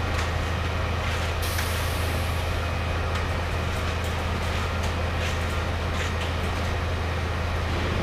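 Concrete boom pump truck's diesel engine running with a steady low drone, under scattered light clicks and knocks, with a brief hiss about a second and a half in.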